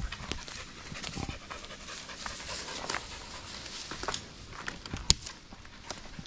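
Aussiedoodle puppy panting, with a single sharp click about five seconds in.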